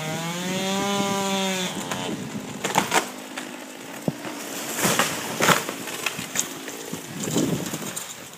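Stihl 020 two-stroke chainsaw running at high revs in a cut, the pitch sagging under load before the engine stops under two seconds in. A series of sharp cracks and knocks follows.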